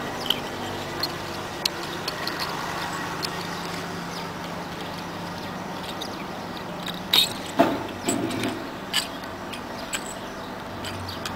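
Pliers squeezing metal screw hooks shut, with scattered sharp metallic clicks and small jingle bells tinkling on the hooks, clustered between about 7 and 9 seconds in. A steady low hum of background noise runs underneath.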